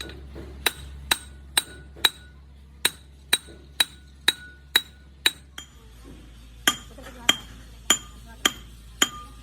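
Hammer striking a metal engine part in a steady rhythm, about two blows a second, each blow ringing. After a brief pause the blows resume, and about six seconds in the ring drops to a lower pitch as the struck spot changes.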